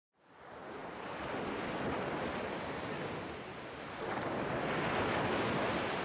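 Sea surf: small waves breaking and washing up a sandy shore, swelling twice.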